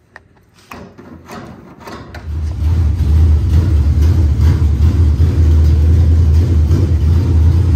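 Freshly reinstalled small-block Chevy V8 in a street stock race car turning over on the starter with a few separate knocks for about two seconds, then catching and running loud and steady. It is the engine's first start after going back in the car.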